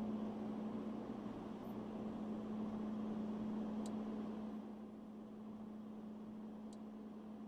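A steady low mechanical hum under a rushing noise, which drops somewhat in level about halfway through. Two faint ticks sound, one near the middle and one near the end.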